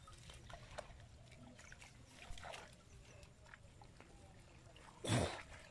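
Water sloshing and dripping as a collapsible ring net trap is lifted and handled in shallow floodwater, with faint small ticks and one short, much louder burst of noise about five seconds in.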